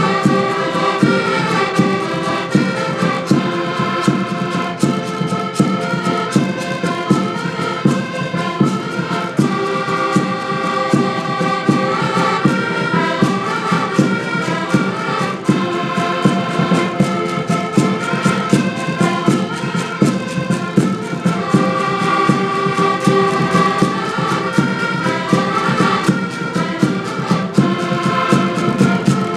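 A group of accordions playing a tune together, held chords under a moving melody, with a steady beat.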